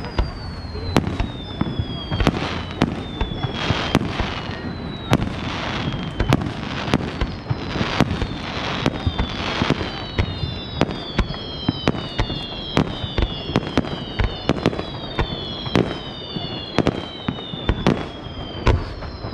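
Aerial fireworks going off in quick succession: sharp bangs of shells launching and bursting about one or two a second, overlaid with many whistles falling in pitch, which grow denser from about ten seconds in.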